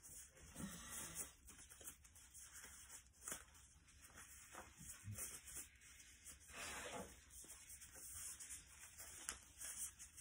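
Near silence: room tone with faint scattered rustling and a few light ticks of handling.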